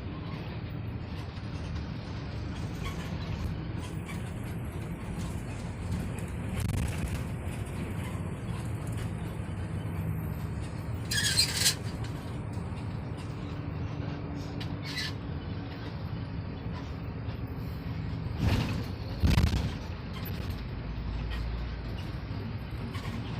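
Steady low rumble of a vehicle on the road, with a short hiss about halfway through and two loud thumps about a second apart later on.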